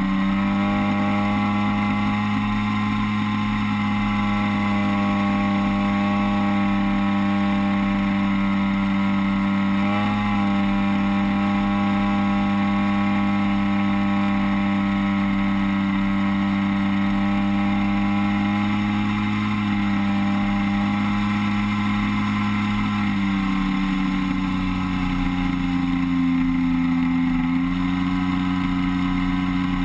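DLE 30 single-cylinder two-stroke petrol engine of an RC DHC-2 Beaver floatplane running steadily in flight, heard close up from the onboard camera. Its pitch wobbles briefly about ten seconds in and shifts a little again about two-thirds of the way through.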